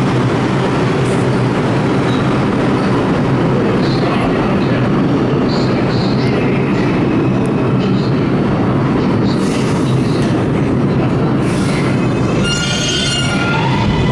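Bombardier R62A subway train approaching along the track: a loud, steady rumble of wheels on rail, with a high squeal setting in near the end as it nears the platform.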